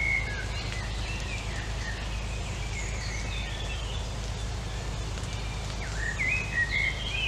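Wild birds chirping and singing: many short, quick calls that rise and fall, louder and busier near the end, over a steady low background hum.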